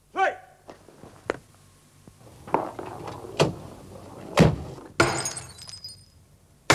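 A ringing knock, then several separate knocks and thuds, followed by glass smashing twice: once about five seconds in and again right at the end.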